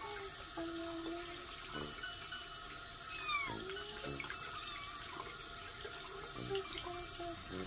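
Tap water running into a sink while a young kitten being washed under it mews several times, one cry held for about a second near the start.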